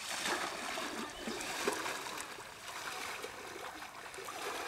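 Hands picking through a wet cast net on muddy ground, with faint handling ticks over a steady hiss.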